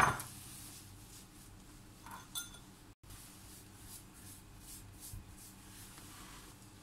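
A knock fading at the very start, then a single light ringing clink of kitchenware a little over two seconds in. After a brief dropout, only faint soft handling sounds remain.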